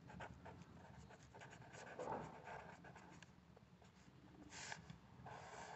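A green pen writing on ruled notebook paper: faint, scratchy pen strokes forming a word.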